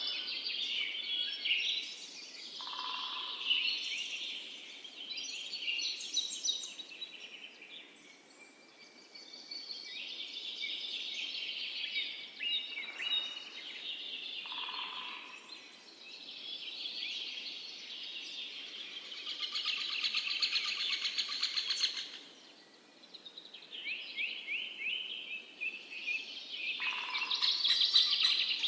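Several songbirds singing and chirping over one another in quick, overlapping phrases, with a lower whistled note from one bird three times and brief lulls between bouts.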